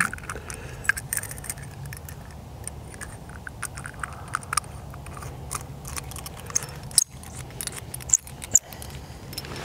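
Small brass tube-style multi-tool being screwed together and handled, its metal parts making scattered light clicks and taps. A few sharper clicks come near the end.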